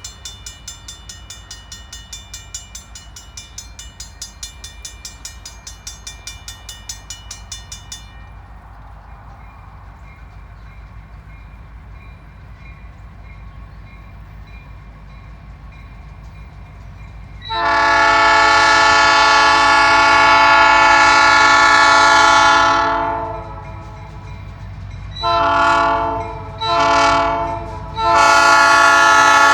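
A mechanical locomotive bell rings steadily for the first several seconds as a freight train approaches, over a low rumble. Later the locomotive's air horn sounds one long blast, two short blasts and another long blast that starts near the end.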